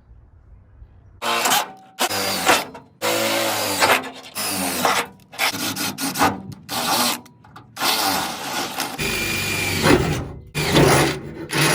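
Power drill running a tap or bit into the five marked holes in the truck door's sheet-metal inner panel, in repeated bursts of a second or so, the motor pitch shifting as it loads.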